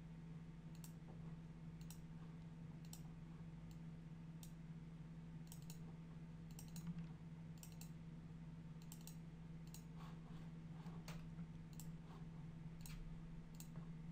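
Computer mouse button clicks, single sharp clicks scattered irregularly about once a second, faint over a steady low electrical hum.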